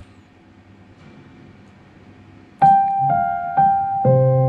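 A faint click, a couple of seconds of quiet hiss, then piano music starting from a CD track about two and a half seconds in. It plays through Victor loudspeakers driven by a Ramsa WP-1200 power amplifier. A few notes are struck about half a second apart, and a fuller, lower chord comes in near the end.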